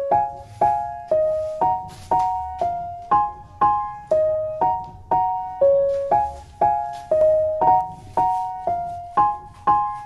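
Background music: a piano playing a simple, even melody, about two notes a second, each note struck and fading.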